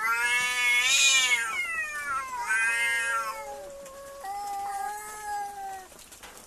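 Domestic cats in a standoff, yowling at each other in three long drawn-out wails. The first rises and falls in pitch, and the last is lower and steadier.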